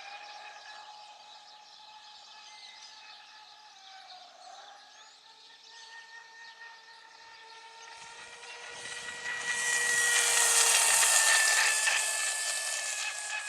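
Electric RC racing boat's motor running with a steady high-pitched whine that dips briefly in pitch partway through. About nine seconds in it grows much louder with a rushing hiss of water spray, then eases off.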